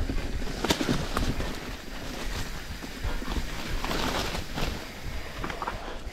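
Mountain bike (YT Capra) riding fast down rough dirt singletrack: wind buffeting the microphone, tyres crunching over dirt and roots, and the bike rattling and knocking over bumps. Rhododendron leaves brush and swish against the handlebars, loudest about four seconds in.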